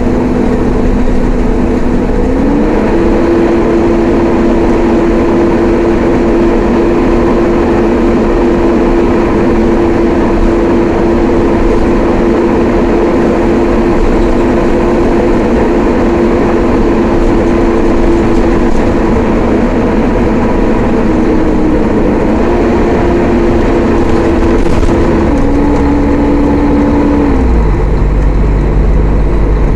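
Mercedes-Benz O500-UA bus's diesel engine and ZF automatic gearbox running under way. A steady whine steps up in pitch a couple of seconds in and holds. Near the end it steps down twice, and a deeper rumble comes in.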